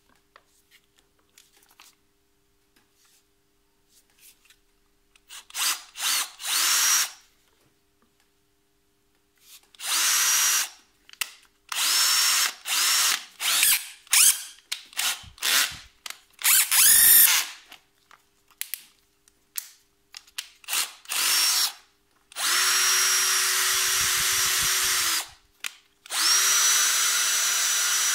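Bosch GSR 18-2-Li Plus 18 V cordless drill driver run with no load: a string of short trigger pulls, each spinning the chuck up briefly and stopping. Near the end come two longer runs of about three seconds each, where the motor whine rises and then holds steady.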